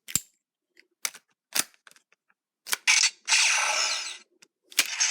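Sharp plastic clicks as a Ranger key is inserted into a Gokaiger Memorial Edition Gokai Saber/Gun toy, followed by a noisy electronic sound effect from the toy's speaker lasting about a second and a half, and a shorter burst near the end.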